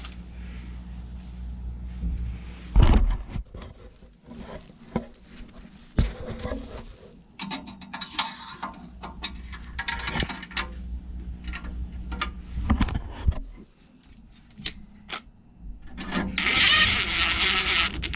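Hands working on a furnace flame sensor and its mounting: scattered clicks and knocks of small metal parts and tools over a steady low hum, with a few seconds of rustling near the end.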